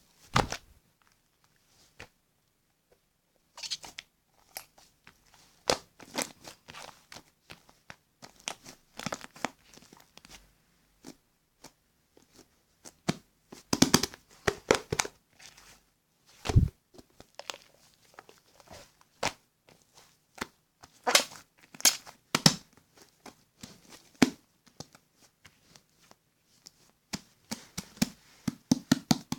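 Irregular crinkling, rustling and tapping of something being handled, like paper or plastic, with a few sharper knocks.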